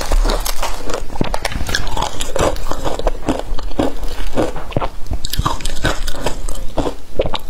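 Close-miked crunching and chewing of frozen matcha ice: bite after bite of hard ice crunching between the teeth, several crunches a second.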